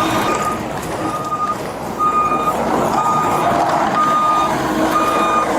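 Reversing alarm on a heavy construction machine beeping about once a second, six beeps on a single pitch, over the machine's running engine: the machine is backing up.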